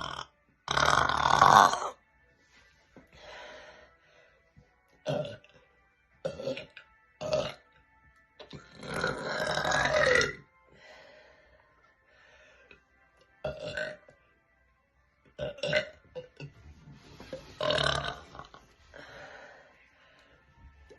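A woman burping loudly over and over, about ten burps of varying length. The longest come about a second in and around nine seconds in, the second one falling in pitch as it goes.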